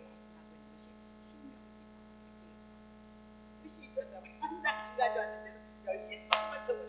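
Steady electrical mains hum during a pause in speaking. A voice resumes about four seconds in, with a sharp click shortly before the end.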